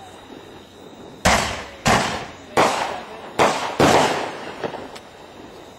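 Aerial fireworks bursting overhead: five sharp bangs in quick succession, starting about a second in, each trailing off before the next.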